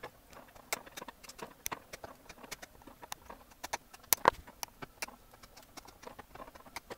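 Flush side cutters snipping the excess component leads on a freshly soldered circuit board: a run of sharp, irregular clicks, two or three a second, loudest about four seconds in.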